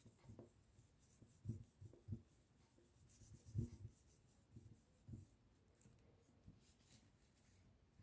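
Faint rubbing of a tissue wiping marker off a plastic-covered sheet, with a few soft, dull bumps as the hands press and wipe against it.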